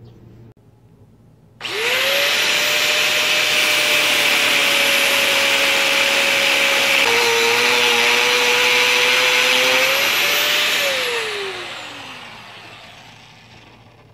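Angle grinder starting abruptly and cutting through steel bar stock with a loud, steady grinding noise. Its motor pitch dips under load about seven seconds in and then recovers. It is switched off and winds down near the end, falling in pitch as it fades.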